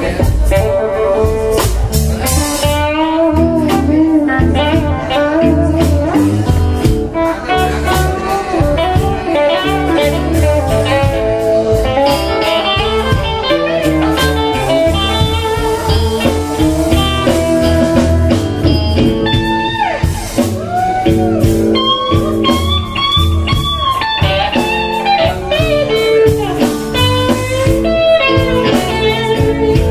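Live blues-rock band jamming: electric guitar lead with bent notes over bass guitar and a drum kit keeping a steady beat.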